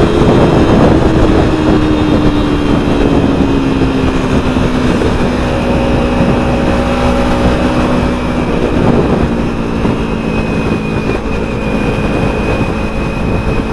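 Kawasaki Ninja 300's parallel-twin engine running under way, its note falling slowly over the first several seconds and then holding steady, under loud wind rush on the helmet microphone.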